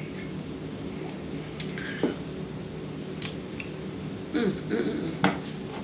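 A few sharp clicks and small cracks of crab shell being picked apart by hand, with a brief murmured voice about four and a half seconds in.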